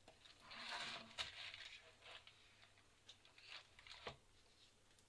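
Plastic dough scraper scraping crumbly ghraiba dough off the top of a mini-muffin baking tin, clearing the excess: faint scraping strokes, a longer one about a second in, then a few shorter ones and a light knock about four seconds in.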